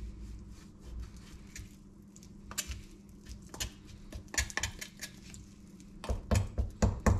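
Chef's knife cutting raw chicken on a bamboo cutting board: irregular knocks of the blade striking the wood, with a quick run of louder chops near the end.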